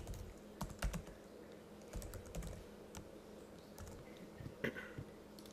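Typing on a computer keyboard: a run of irregular, quiet key clicks.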